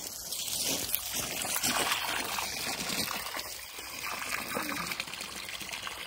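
Shallow gravel-bed stream trickling steadily, with a few footsteps on the gravel bank.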